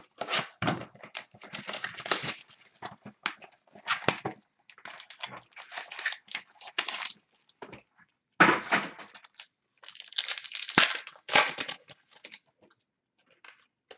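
2016-17 Totally Certified basketball card pack being taken from its box and torn open, with cards handled: irregular crinkling and tearing of the pack wrapper, loudest in a few bursts past the middle.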